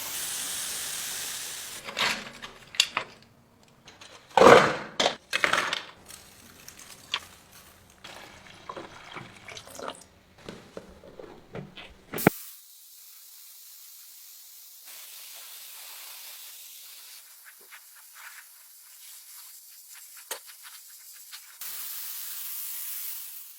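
Paint spray hissing in steady blasts at the start and again near the end, with irregular sharp knocks and clatter of small parts being handled in between.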